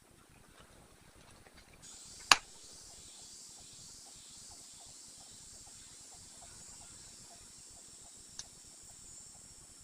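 Insects start a steady high-pitched buzz about two seconds in and keep it up over quiet woodland ambience. Just after the buzz begins there is a single sharp click, the loudest sound here, and a faint tick comes near the end.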